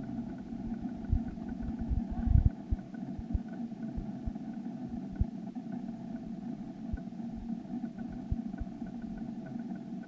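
Steady hum of an idling vehicle engine, with scattered low thumps, the loudest about two and a half seconds in.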